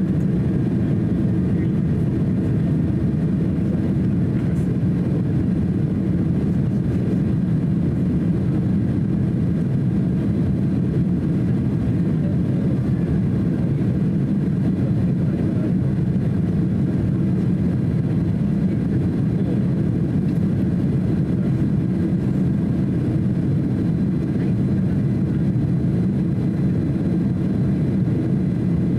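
Cabin noise inside a Boeing 767-300 airliner in flight: the jet engines and rushing air make a steady, even low rumble at the window seat over the wing, with no change in pitch or level.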